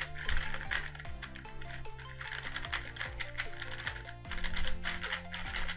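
A Qiyi Thunderclap V3M magnetic 3x3 speed cube being turned quickly by hand, its layers making rapid, quiet clicks and clacks. Background music with a bass line plays under it.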